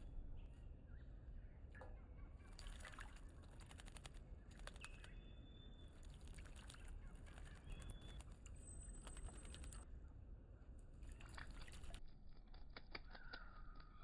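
Small birds at a birdbath: faint clusters of rapid ticking, splashing sounds, and a few short high chirps. A thin high whistle comes near the middle.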